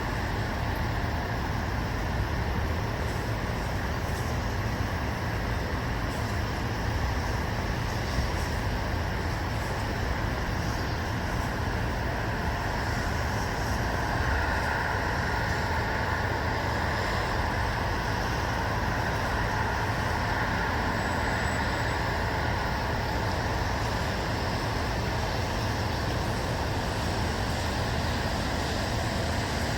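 Steady, even white-noise ambience with a strong low rumble and no distinct events.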